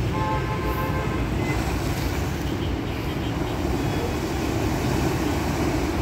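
Sea surf washing over and against concrete breakwater blocks: a steady rush of water, heavy in the low end.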